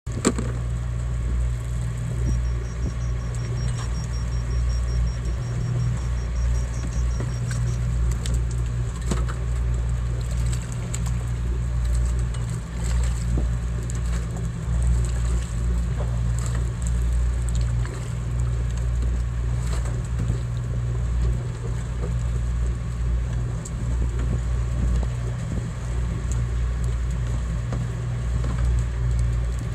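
A fishing boat's engine running with a steady low drone, heard from the deck, with scattered clicks and knocks. A faint, fast, high-pitched ticking runs for about five seconds, starting about two seconds in.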